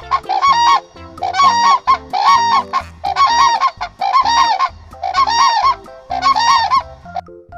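Crane calling: a series of loud, harsh trumpeting calls of two or three notes each, about one a second, ending about seven seconds in.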